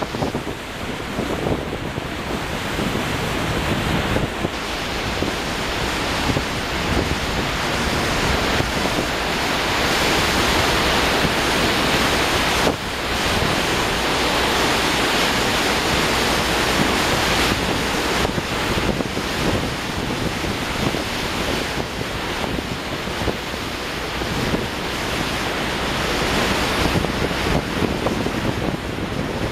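Wind on the microphone over the steady rush of water churned up alongside a moving ferry. It grows louder through the middle, with a brief dip about twelve seconds in.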